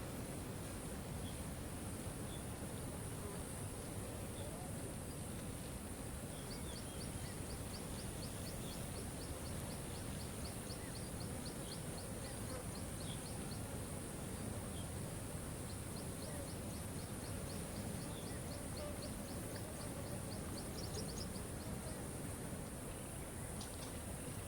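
Steady rush of a waterfall with a constant high hiss above it. A rapid, high, dry ticking trill of several ticks a second comes in two long runs across the middle.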